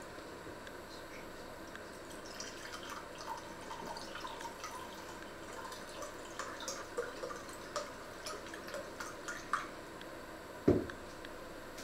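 A drink poured from a carton into a small glass: a run of small irregular splashes and drips for several seconds. Near the end comes a single loud thump.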